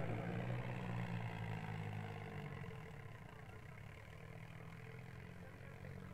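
Diesel tractor engine running steadily as the tractor drives a wheelie on its rear wheels, fading over the first few seconds and then holding faint.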